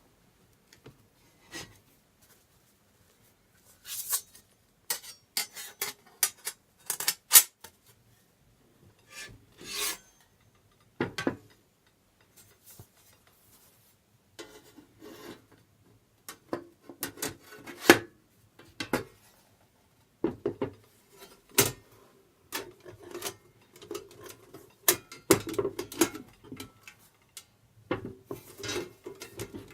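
Parts of a campfire stand being handled and fitted together by hand: irregular scraping and sliding with sharp clicks and knocks, growing busier about halfway through.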